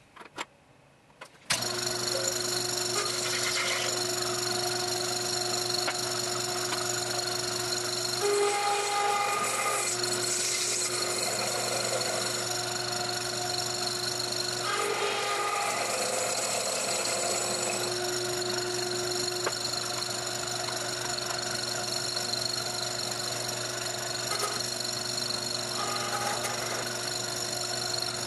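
Taig micro lathe starting up about a second and a half in, after a couple of clicks, then running steadily with a whine of several held tones. The sound shifts briefly a few times partway through.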